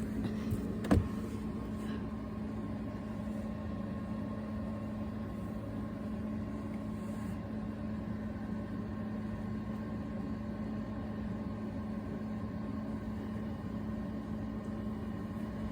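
Steady machine hum, with one sharp click about a second in.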